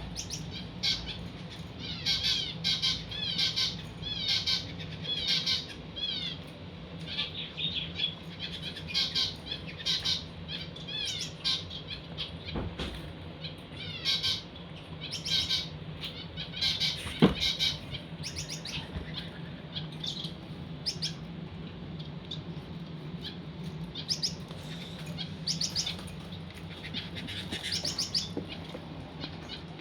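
Small finches chirping in quick runs of short rising-and-falling notes, over a steady low hum. A single sharp knock about seventeen seconds in.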